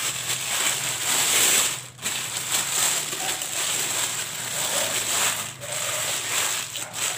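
Thin polythene bag crinkling and rustling as hands wrap a block of dough in it, with a few brief pauses.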